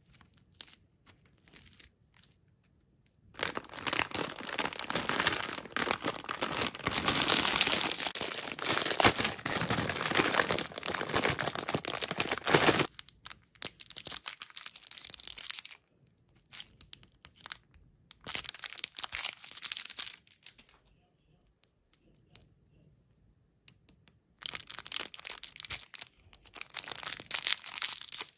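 Plastic candy wrappers crinkling and tearing as individually wrapped hard candies are handled and unwrapped by hand. The crinkling comes in bursts: one long loud stretch in the first half, then three shorter ones with quiet gaps between.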